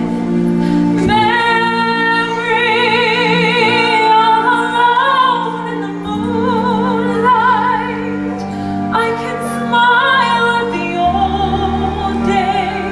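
Slow ballad with a female voice singing long held notes with wide vibrato, in phrases, over sustained orchestral chords.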